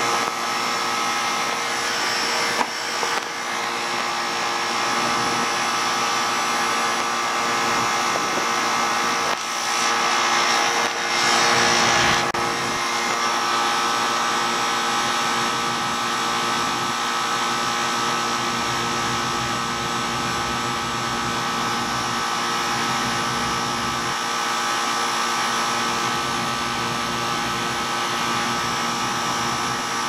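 3-ton Sanyo split-system condensing unit running steadily: compressor hum under the whoosh of the condenser fan, left running to stabilize after a top-off of R-22. Twice, about ten and twelve seconds in, a louder rush of noise rises briefly.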